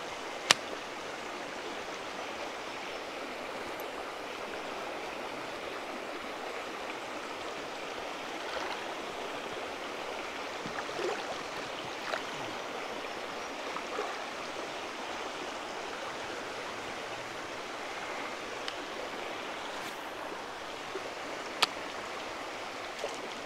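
Small rocky river rushing steadily over rocks. Two sharp clicks stand out above it, one about half a second in and one near the end.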